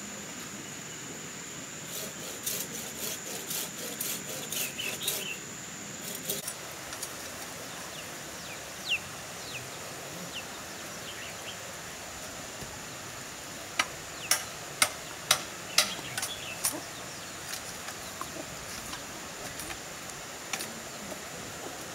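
Hard wooden knocks and clatter of bamboo poles being handled and worked. A rattling run of knocks comes a couple of seconds in, and a series of single sharp knocks, about two a second, comes past the middle. A steady high whine and a few short bird chirps run underneath.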